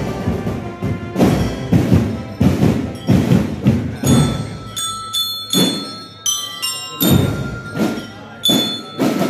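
Marching band playing a steady drum beat, about two strokes a second. About four seconds in, bell lyres (marching glockenspiels) come in over it, ringing out a melody of clear, high notes.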